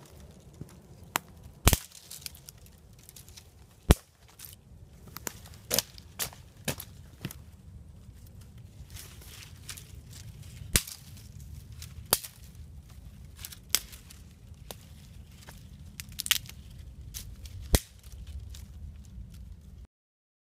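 Sharp wooden cracks and knocks at irregular intervals, a second or two apart, from sticks and branches being chopped and broken, with rustling between them. The sound cuts off abruptly near the end.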